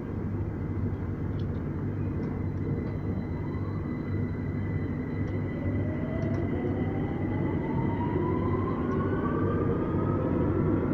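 2009 Stock Victoria line train pulling away from a platform: the traction motors' whine rises steadily in pitch as it accelerates. Two climbing tones come in about three and five seconds in, over a steady rumble and a steady high hum.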